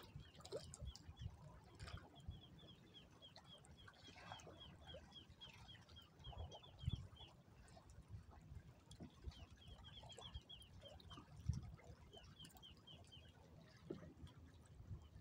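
Faint bird chirping: a rapid series of short, high chirps, about seven a second, coming in several runs with gaps between, over a low wind rumble and occasional bumps.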